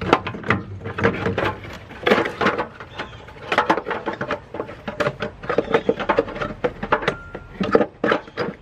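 Thin stamped-metal exhaust manifold heat shield knocking and rattling against the engine as it is worked back into place by hand, an irregular run of sharp clicks and clanks.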